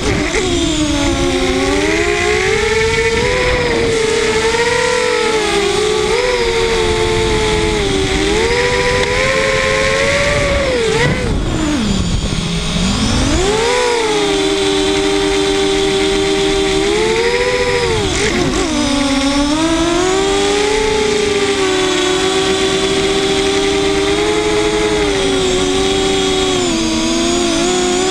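Multirotor drone's brushless motors and propellers whining in flight, the pitch rising and falling with the throttle during a PID-tuning flight. A little before halfway the pitch drops sharply low and climbs back, and it dips briefly again about two-thirds of the way through.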